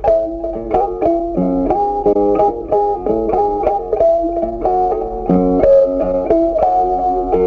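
Background music: a quick melody of plucked notes.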